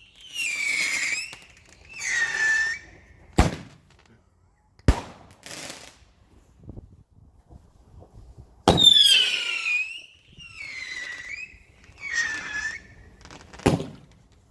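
Garden fireworks shooting off whistling shots: six screeching whistles, each about a second long and falling in pitch, come in two groups of three, with sharp bangs in the pause between the groups and again near the end.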